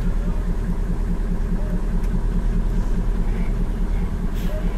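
Mitsubishi Fuso self-loader truck's diesel engine running steadily as heard from inside the cab while driving slowly, with a low, even pulse. A brief click comes near the end.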